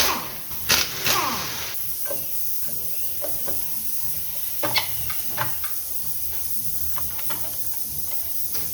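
A few sharp knocks, then a steady hiss with a few scattered clicks.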